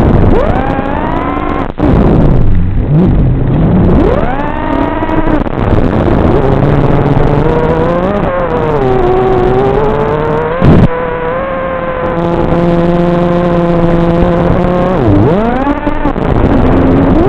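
Racing quadcopter's brushless motors whining, the pitch swooping up and down sharply and often as the throttle changes. A short sharp knock stands out about 11 s in.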